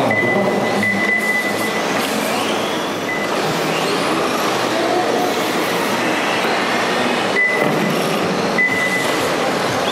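Radio-controlled rally cars racing on a dirt track: their motors whine, rising and falling in pitch over a steady rush of noise. A steady high tone sounds a few times, about a second in and again near the end.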